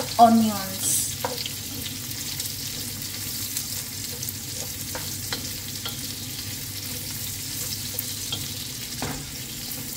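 Carrot and broccoli-stem pieces sizzling steadily in oil in a wok. A wooden spatula stirs them, tapping and scraping the pan now and then.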